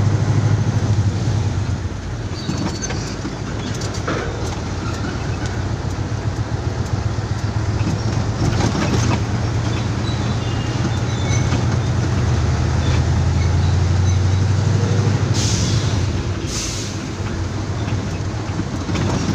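Truck's diesel engine running steadily under way, a low drone heard from inside the cab. Two short hisses come near the end.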